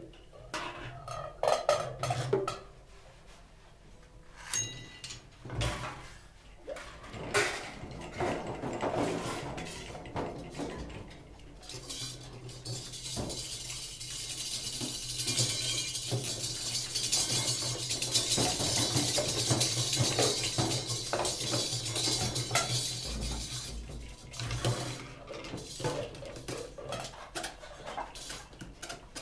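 Free-improvised percussion duo clattering, scraping and striking cymbals and small metal objects. Scattered separate hits and rattles give way about twelve seconds in to a dense, bright metallic shimmer, which thins back to sparse strikes near the end.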